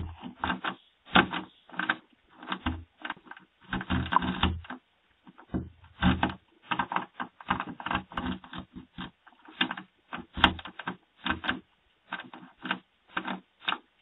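Irregular metallic clicking and rattling at a door lock, a burst every fraction of a second with short pauses, as someone works at it with a jimmy to get in. Heard through a doorbell camera's microphone.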